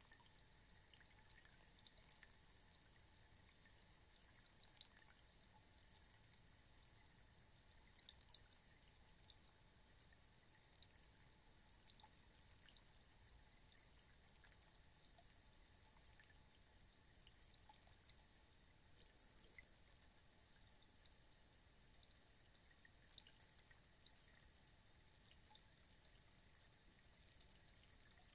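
Rainstick trickling: a faint, steady patter of many tiny ticks.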